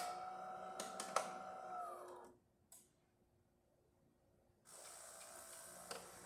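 DeLonghi Eletta's built-in coffee grinder grinding beans with a steady whine and a few clicks about a second in, then winding down in pitch and stopping about two seconds in. After a quiet gap, a steady hissing machine noise starts near the end as the brew cycle goes on.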